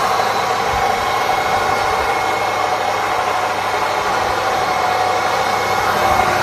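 Sweet potato pulverizer running steadily, its motor and grinding drum giving a constant even hum with a rushing noise over it.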